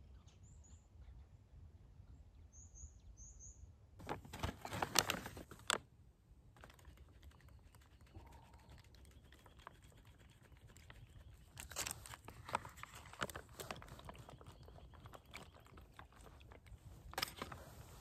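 A few short high bird chirps. Then loud bursts of crinkling and crackling from a plastic food pouch being handled, near the middle and again near the end.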